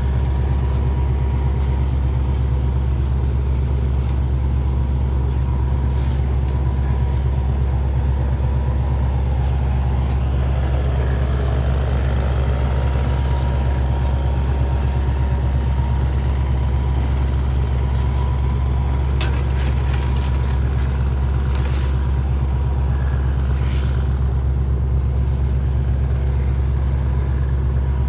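Heavy engine running steadily at one speed, a deep, unchanging rumble with a few brief clicks.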